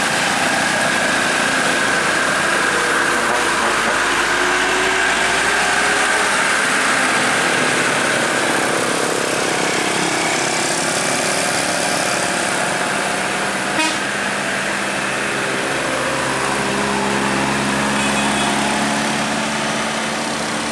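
Mercedes-Benz Axor tractor-trailer hauling precast concrete up a steep hill, its diesel engine running steadily under heavy load.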